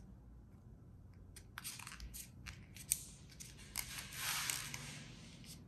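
Folded dollar-bill paper crinkling and creasing under the fingers: a few sharp crackles, then a longer rustle about four seconds in.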